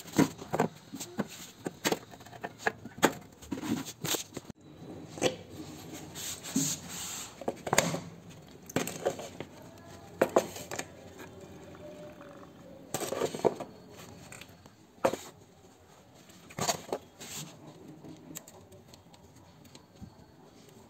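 Irregular clicks, knocks and short scrapes of hands working on metal parts at the rear wheel and brake of a Bajaj Chetak scooter, with a rag wiping the parts clean. It grows quieter near the end.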